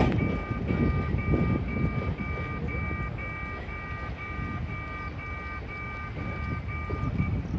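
Level-crossing warning signal sounding its alarm, a repeated beep about twice a second, then stopping shortly before the end. A steady low rumble runs underneath.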